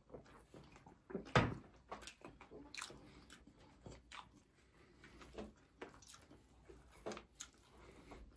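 Close-up eating sounds: people biting and chewing slider burgers and fries, with scattered wet smacks and clicks. A louder thump comes about a second and a half in.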